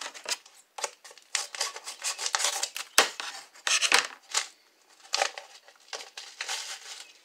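Paper packet of onion soup mix rustling and crinkling as it is worked open by hand: a run of short scratchy rustles with two sharper snaps about three and four seconds in.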